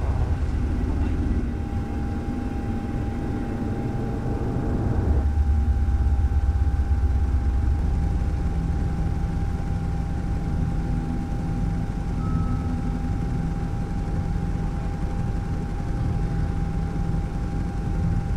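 Steady low drone of an aircraft's engine and rotor noise, as heard aboard while filming from the air, with a faint steady tone over it. The drone changes character about five seconds in.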